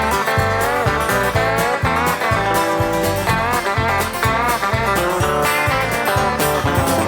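Instrumental break of an uptempo country song: electric guitar licks with bent notes over a steady bass and drum beat.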